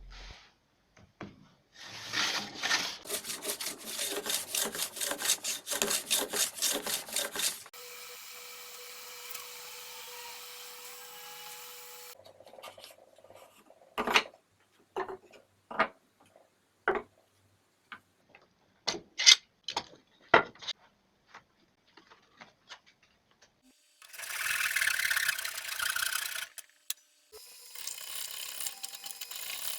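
Hand woodworking on an instrument body: several seconds of fast, even strokes of a hand tool on wood, then a steady hum with a low tone, then a run of separate sharp taps and knocks. Near the end come more stretches of scraping on wood.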